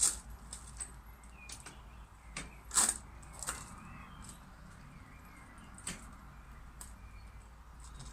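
Irregular clicks and knocks of a bicycle wheel being handled and fitted back onto the bike, the loudest right at the start and about three seconds in.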